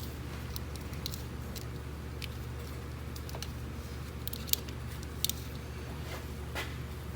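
Scattered light clicks and rattles of hands working plastic clips and connectors in a car's engine bay, with two sharper clicks about four and a half and five seconds in, over a steady low hum.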